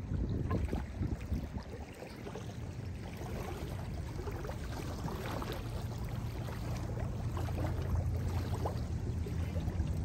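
Small lake waves lapping and splashing onto a sandy shore in a continuous wash of many little splashes, with a low steady rumble underneath.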